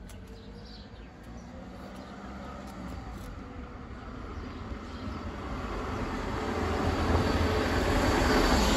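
A passing vehicle: its rumbling noise swells steadily over several seconds to a peak near the end, then starts to fade.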